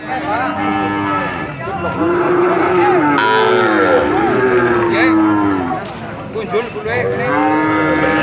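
Young cattle mooing: fainter calls at first, then one long, wavering moo lasting about four seconds, and another moo starting near the end.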